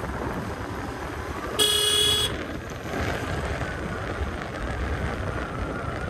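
Steady motorcycle riding noise, engine and wind on the microphone, with one short horn beep about one and a half seconds in, lasting under a second.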